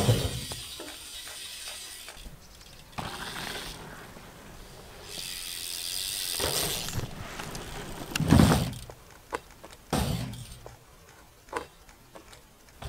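BMX bike ridden over dirt jumps and wooden kickers: tyres rolling and scrubbing on dirt and ramp boards, the freewheel hub ticking while it coasts, and heavy landing thumps, the loudest about eight seconds in.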